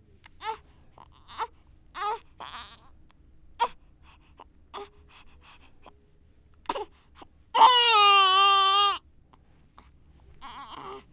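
One-month-old baby fussing and crying: a run of short whimpers, then one long loud wail about seven and a half seconds in, and a weaker cry near the end.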